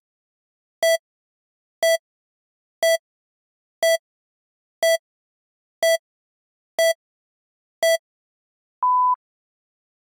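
Electronic countdown beeps: a short beep about once a second, nine in all, then a single longer, higher-pitched beep about nine seconds in, like a countdown reaching zero.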